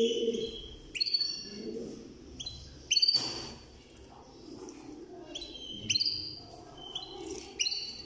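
Domestic canaries giving short, high chirping calls, a note or two at a time at irregular intervals. A sharp knock comes about three seconds in.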